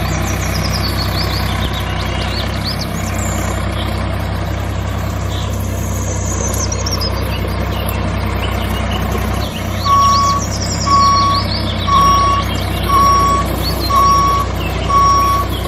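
Tractor diesel engine running steadily, with birds chirping in the background. From about ten seconds in, a reversing beeper sounds six times, about once a second.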